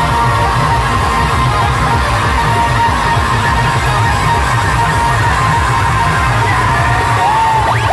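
Star band music blasting through a large speaker stack: fast, pounding drums under a long held electronic melody note that bends near the end, with the crowd yelling.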